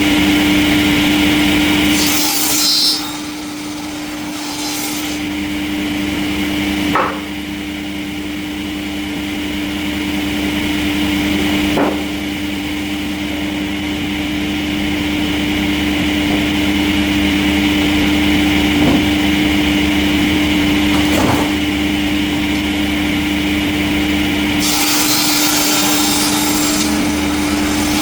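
Industrial sawmill saw cutting through a log: a steady machine hum under the rasping noise of the cut, with a few sharp clicks.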